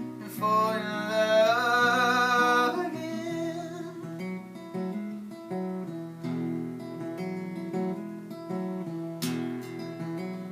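Live folk song on acoustic guitar: a held sung note with vibrato over the strummed guitar for the first couple of seconds, then the acoustic guitar carrying on alone.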